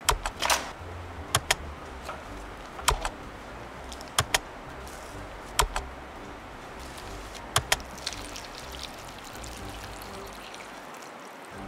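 Plastic seasoning sachets crinkling and crackling in the hand as they are squeezed out over a paper cup of instant hot and sour vermicelli. The crackles are sharp and come every second or two, often in quick pairs. Near the end, hot water pours from a kettle into the cup.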